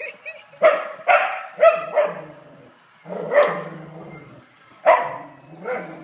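Cocker spaniel barking excitedly: about seven short, loud barks in irregular bunches, four in the first two seconds, then single barks.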